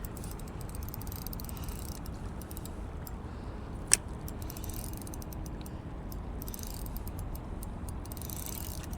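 Fishing reel being wound in while a small mulloway is played on the line: spurts of quick, soft ticking, with one sharp click about four seconds in.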